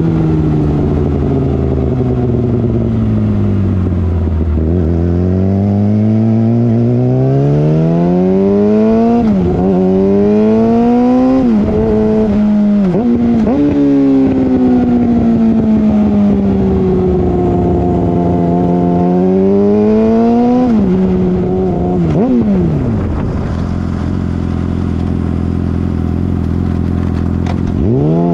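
2013 Yamaha R6's inline-four running loud through an M4 Street Slayer exhaust with the muffler box deleted. Its pitch falls as it slows, then climbs with several quick drops as it shifts up through the gears. It eases off, rises once more, then settles to a steady idle for the last few seconds.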